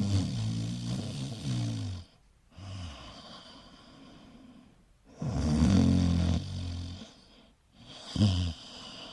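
Cat snoring: two long, low snores about five seconds apart, each followed by a quieter breath, and a shorter snore near the end.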